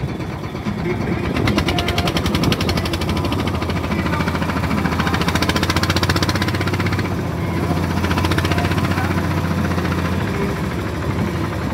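Small fishing boat's engine running steadily under way, a fast, even chugging over a low hum.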